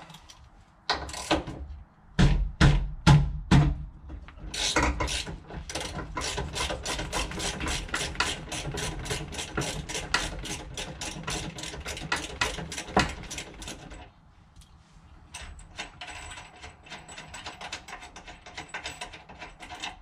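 Socket ratchet turning a 17 mm seat belt anchor bolt: a few loud clicks and knocks in the first few seconds, then fast, even clicking of the ratchet's pawl, about five or six clicks a second, for about ten seconds as the bolt is backed out, then fainter clicking near the end.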